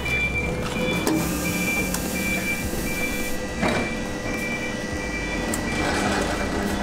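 Freund Spir-A-Flow fluid-bed granulator-dryer running with a steady low hum while rotary switches on its control panel are turned, with a couple of clicks. A short high beep repeats about twice a second until about six seconds in, when the machine's sound changes to a continuous higher tone.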